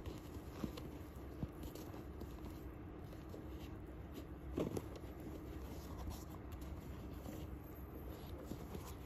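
Faint rustling and scraping from handling a Norda 001 trail running shoe, its tongue and laces being flexed by hand, with scattered soft clicks and one louder knock about halfway through, over a low steady hum.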